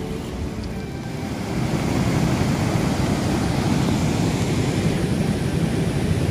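Steady rushing of a muddy, fast-flowing river running past a low concrete bridge, growing louder about a second and a half in.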